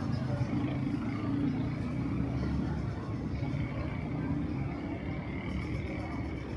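City street traffic: a steady rumble of cars and other vehicles running and passing.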